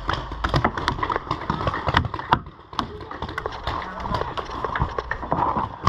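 Paintball markers firing: an irregular string of sharp pops, several a second, with a short lull about halfway through.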